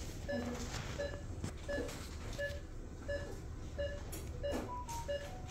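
Operating-theatre patient monitor giving its short pulse beep, evenly about one and a half times a second, each beep marking a heartbeat picked up by the pulse oximeter, over a steady low room hum.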